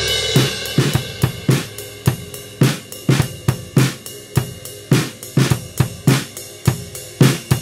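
Drum kit recorded through a spaced pair of overhead microphones, playing a steady beat of kick, snare, hi-hat and cymbals with a hit about twice a second. It is heard through a conventional panpot used to pull the off-centre snare and kick to the middle, which leaves the stereo image narrow and unnatural.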